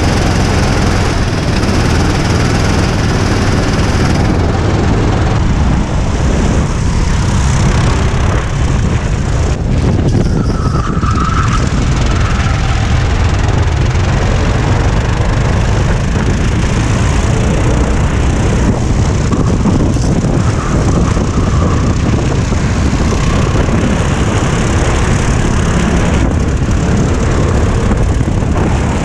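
Go-kart engine running steadily at speed, picked up by a camera mounted on the kart.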